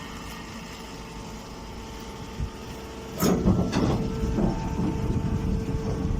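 Straw baling machine running with a steady hum. About three seconds in come two sharp metallic clanks, then a louder rough rumbling as it works.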